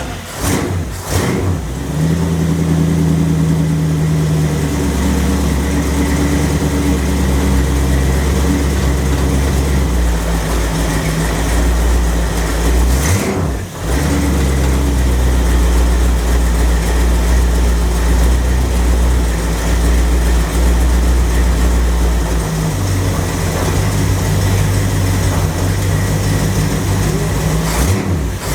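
Car engine running steadily, its pitch stepping up or down several times: about two seconds in, around ten seconds, and again past the twenty-second mark, with a brief dip in the sound about halfway through. It is being run to test a freshly reworked 727 TorqueFlite automatic transmission.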